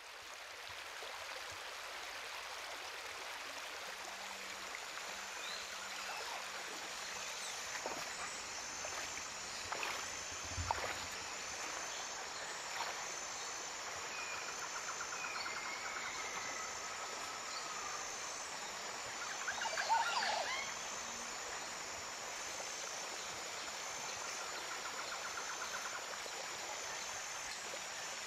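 Shallow rocky stream running steadily over stones, a constant rushing of water. Over it a high, short chirp repeats evenly about every second and a half, with a few scattered chirps and trills.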